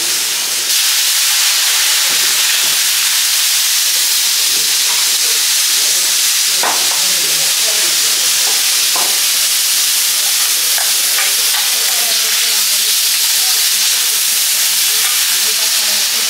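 Pineapple chunks sizzling steadily on a hot teppanyaki iron griddle, with a few light taps of a metal spatula on the plate as the pieces are turned.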